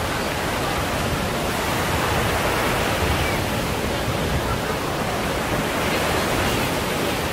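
Steady seaside noise: the constant wash of surf along the beach.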